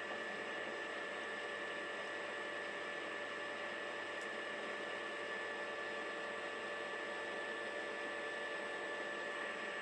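Deckel FP2 milling machine running steadily: a constant hum with several steady whining tones over an even hiss, with no change in pitch or level.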